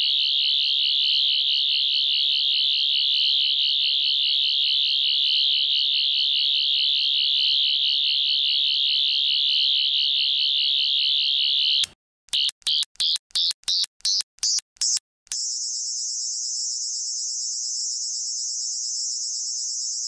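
Doctor Who sonic screwdriver sound effect: a high, warbling electronic whine held steady for about twelve seconds. It then breaks into a quick run of short bleeps stepping up in pitch, and settles into a higher steady warble.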